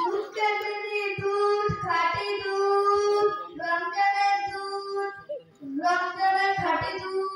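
A boy's voice chanting or singing a melodic line into a microphone, unaccompanied, with long held notes and two short breaks for breath.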